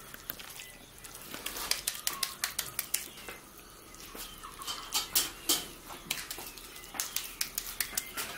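Hands shaping a ball of wet raw tuna patty mixture, giving many quick soft slaps as it is patted between the palms.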